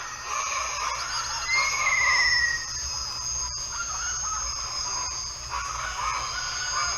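Wetland birds calling in a mangrove swamp over a steady high-pitched insect drone, with one clear falling whistled call about a second and a half in.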